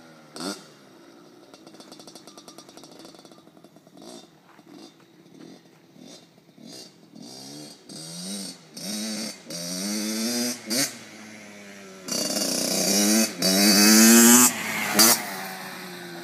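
Kawasaki KX60 two-stroke dirt bike engine revving up and easing off over and over, its pitch climbing with each twist of the throttle and falling back. The revs are kept low, short of the power band. It is faint at first and grows loud in the last few seconds.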